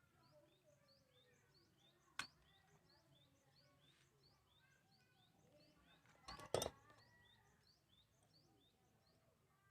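Faint high chirps repeating two or three times a second, with one sharp click about two seconds in and a louder cluster of clicks at about six and a half seconds.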